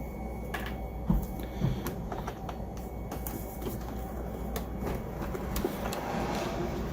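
Plastic robot-vacuum parts being handled and set down, giving scattered light clicks and knocks. The loudest knock comes about a second in. A low steady hum runs underneath.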